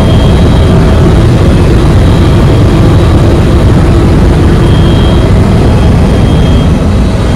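Helicopter in flight: the engine and rotor noise is loud and steady throughout, heaviest in the low end, with a faint steady whine above it.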